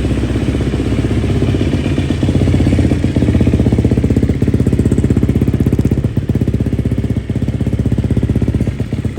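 GasGas dirt bike engine running steadily at idle after its rebuild, with rapid even firing pulses, a little louder from about three seconds in.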